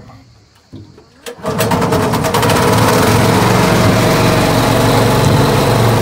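A small engine on a workboat starts about a second and a half in. Its firing quickly speeds up and then settles into steady running.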